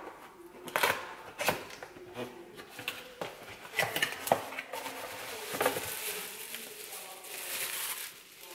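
A small cardboard box handled and opened by hand: a run of light knocks, taps and flap scrapes, then clear plastic bubble-wrap packaging crinkling as it is pulled out and handled, from around the middle to near the end.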